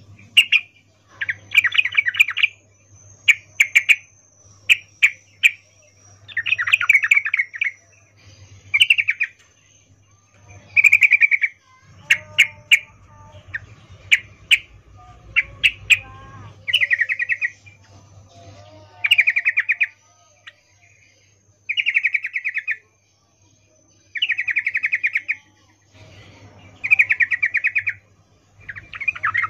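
Female yellow-vented bulbul (trucukan) calling in breeding condition, the 'ngecuplik' call used as a lure to set males singing: short chattering bursts under a second long, repeating every two to three seconds, with sharp single chips between them.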